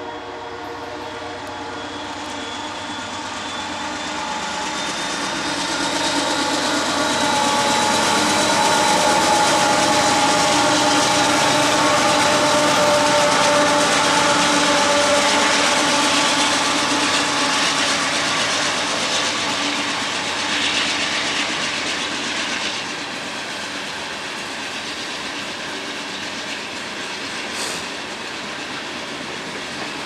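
A pair of GE diesel freight locomotives, a Norfolk Southern unit and a CEFX AC44CW, working past at close range, engines and traction motors growing louder and peaking as they go by. The sound then settles into the steady rolling clatter of loaded tank cars on the rails.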